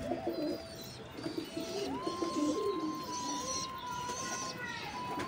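Domestic pigeons cooing, a low warbling coo repeated over and over.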